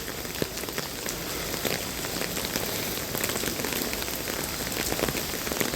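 Pouring rain falling: a steady hiss with many small drop ticks.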